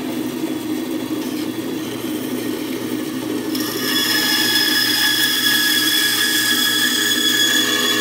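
Bandsaw running with a steady motor hum. About three and a half seconds in, the blade starts cutting into a wooden block and a higher whine rises over the hum.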